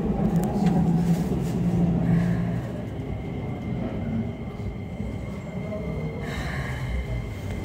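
Keikyu electric train cars moving past close by at low speed: a steady rumble of wheels on rail, with a steady high whine joining about six seconds in.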